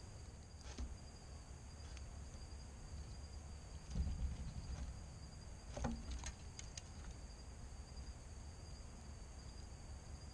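Insects chirring steadily at two high pitches. A few soft knocks and scrapes come through, the loudest about four and six seconds in.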